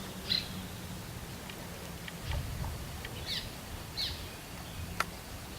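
Birds chirping outdoors: a few short, high calls, each falling in pitch, over quiet background, with a single sharp click about five seconds in.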